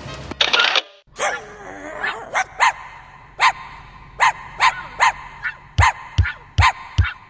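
Puppies play-fighting, one yapping in a string of short, sharp barks about two a second, each dropping in pitch. The barking starts about a second in, right after a cut.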